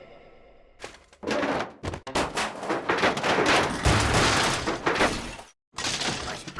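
Cartoon slapstick sound effects: a rapid clatter of crashes and knocks that stops abruptly, then a short burst of the same.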